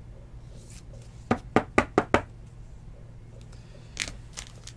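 Four quick sharp taps about a second in, with a softer one near the end, from handling a plastic-sleeved trading card against the table. A low steady hum lies under them.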